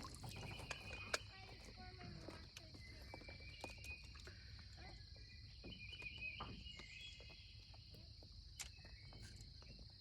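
Faint outdoor ambience: a steady high insect drone with a few short bird chirps, and scattered small clicks.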